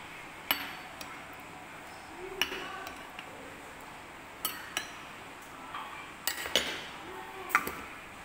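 A metal spoon clinking against a glass jar and a glass bowl while pickled peppercorns are scooped out. About seven sharp, irregular clinks, each ringing briefly.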